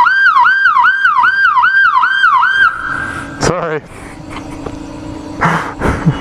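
Police motorcycle siren on a CHP Kawasaki Concours 14, set off by pressing the wrong button, sounding a fast yelp of about two and a half rising-and-falling sweeps a second. Nearly three seconds in it holds one high tone briefly, then glides down and cuts out as it is switched off, leaving a low steady hum.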